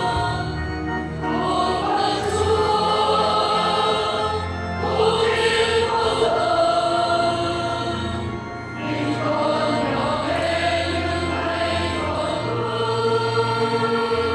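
Children's and youth choir singing a hymn in long held phrases over a low steady bass, pausing briefly twice between phrases.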